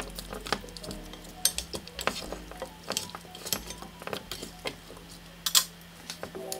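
Wooden chopsticks and a wooden spoon mixing sauce-coated chicken pieces and chopped vegetables in a pan: irregular clacks and taps of wood against the pan and the food, the loudest a little after five seconds. Soft background music plays beneath.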